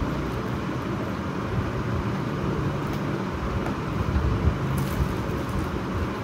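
Steady low rumbling background noise, with a few soft clicks and crackles as a fried luchi is torn by hand and eaten.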